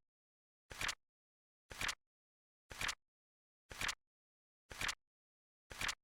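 Flip-clock flap sound effect: a short, crisp double clack once every second, six times, as the seconds digit flips over, with silence between.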